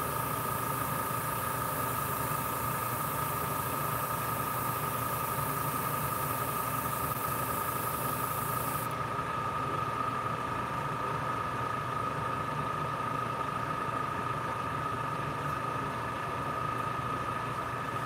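Small electric motor of an airbrush painting setup running with a steady hum and a high whine. A high airy hiss over it cuts off suddenly about halfway through.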